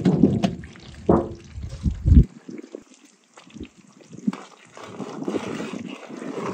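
Heaps of peeled orange segments being tipped and scraped off a plate into a wide pan of hot, bubbling compote syrup. They land in several heavy wet splashes over the first two seconds, then the liquid sloshes and bubbles more quietly while a metal slotted skimmer stirs the fruit.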